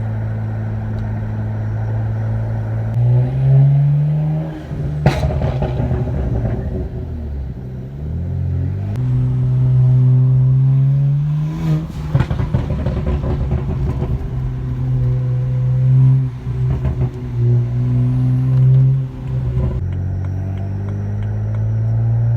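BMW 335's straight-six exhaust as the car is driven, the engine note rising under throttle and dropping on lift-off several times. A single sharp pop about five seconds in, and bursts of crackles on the overrun at about five and about twelve seconds in.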